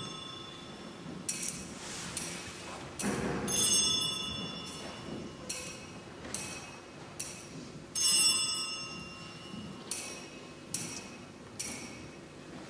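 Altar bells rung at the elevation of the consecrated host. A set of small bells rings about three seconds in and again about eight seconds in, with sharp metallic clinks roughly once a second in between.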